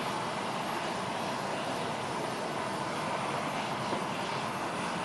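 Steady, unbroken noise of a parked jet aircraft running on the apron.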